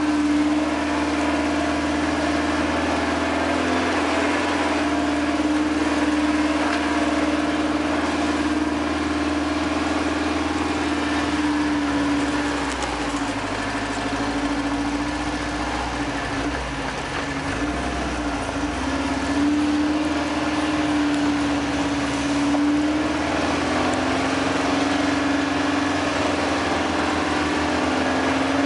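Toyota 4Runner engine running steadily at low crawling speed on a dirt road, a continuous drone with road noise underneath. The drone eases and wavers about halfway through, then picks back up.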